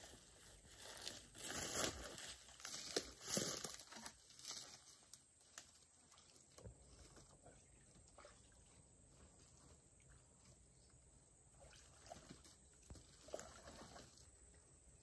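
Faint rustling and crunching of footsteps through grass and dry leaves. There are a few louder steps in the first few seconds, then quieter scattered handling noises.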